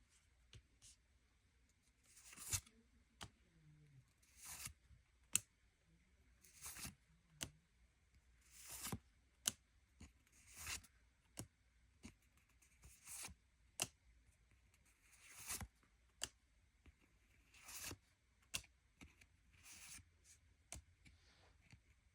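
Pokémon trading cards being slid one at a time through a freshly opened pack, a soft swish about every two seconds with small sharp clicks in between.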